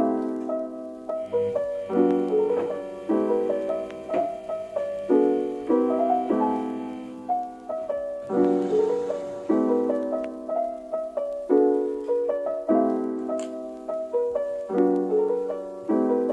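Background music: a lofi-style piano melody with repeated chords and a steady pulse.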